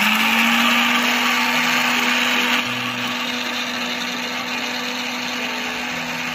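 Deepak Ganga 1100-watt mixer grinder running, its motor hum settling to a steady pitch under the loud whirr of the blades grinding dry pulses into fine powder in the small jar. It gets a little quieter about two and a half seconds in.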